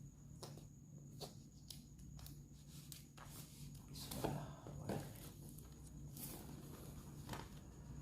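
Light, scattered clicks, taps and rustles of a smartphone's box and packaging being handled while it is unboxed, with a few slightly louder handling noises about halfway through.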